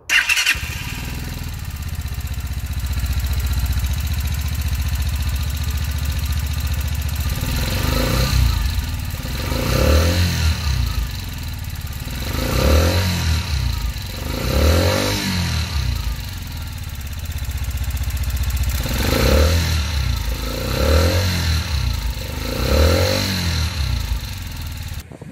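Lifan 150cc single-cylinder four-stroke fuel-injected engine idling steadily, then revved in seven short throttle blips about two seconds apart, each rising and falling back to idle.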